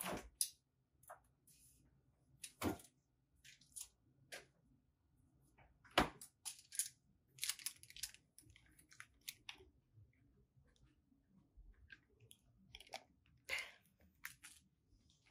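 Quiet kitchen handling sounds: a refrigerator door pulled open near the start, then a string of sharp clicks, knocks and crinkly rustles.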